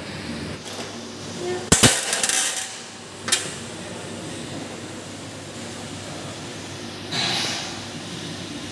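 A sharp metallic double click followed by about a second of clatter, then a single click a second and a half later, over a steady low hum; a short burst of rustling noise comes near the end.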